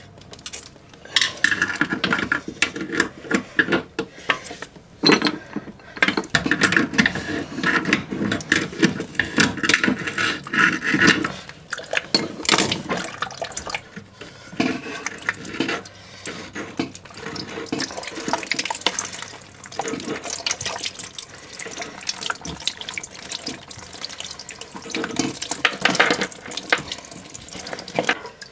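Water splashing and dripping with irregular knocks and rattles of plastic parts, as the old toilet fill valve is worked loose and removed from the tank.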